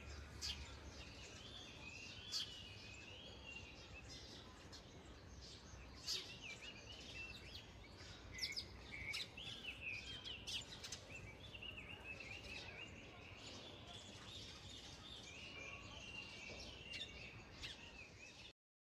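Small birds chirping and twittering repeatedly over faint, steady background noise; the sound cuts off abruptly near the end.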